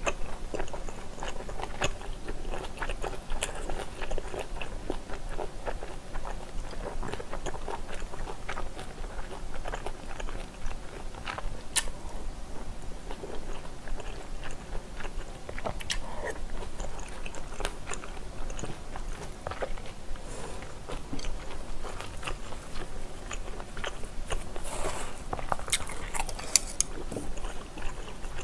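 Close-miked chewing of a full mouthful of spicy stir-fried pork belly and squid, with many small wet mouth clicks and crunches.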